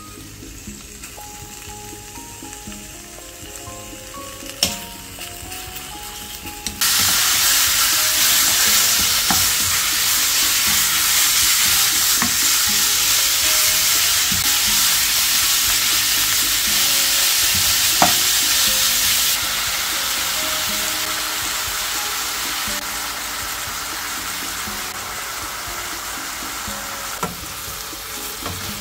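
Pork belly sizzling loudly in a frying pan as it is stir-fried with a wooden spatula, with a few knocks of the spatula against the pan. The sizzle jumps up suddenly about seven seconds in after a quieter start and eases somewhat after about twenty seconds.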